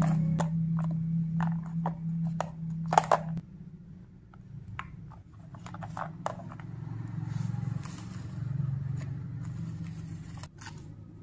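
Handling noise: a phone being set into a plastic stand holder and a charging cable and plug being handled, a run of short clicks and scrapes, loudest about three seconds in. A low hum runs underneath, stronger for the first three seconds or so.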